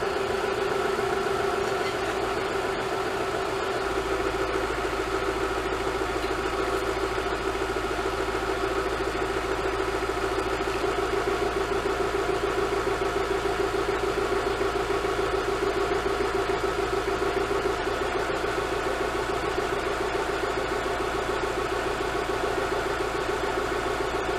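Warm car engine idling steadily with engine-flush fluid mixed into its oil, heard up close in the engine bay.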